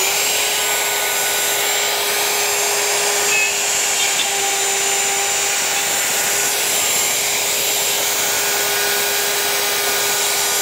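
Plunge router running at full speed with a steady high whine, its 1/4-inch bit routing shelf-pin holes through a Woodpeckers template into plywood.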